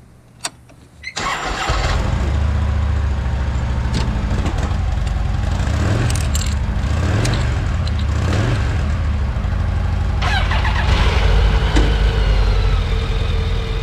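Motorcycle start-up: a click, then an engine catching about a second in and running steadily with a strong low rumble. About ten seconds in, more mechanical noise joins it.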